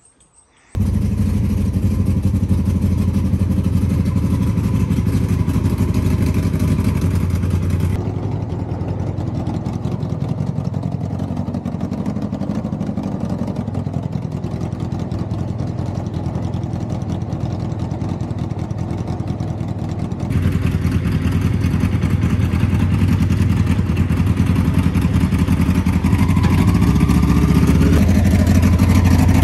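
Unmuffled Honda CBR600 inline-four motorcycle engine, coming in abruptly about a second in and then running steadily near idle in first gear, with a rising note near the end.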